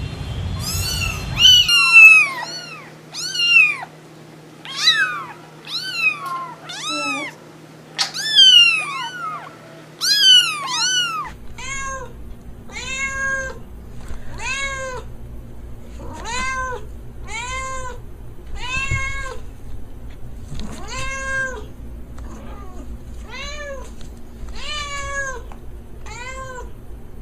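Cats meowing over and over: first a string of high-pitched, falling meows, then, from about eleven seconds in, a white calico cat meowing steadily, each call rising and falling, roughly once a second.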